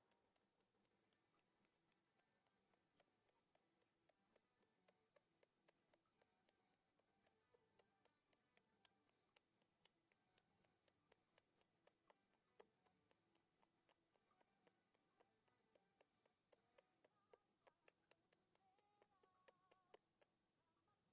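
Faint, rapid, regular ticking, about four sharp clicks a second, over near silence.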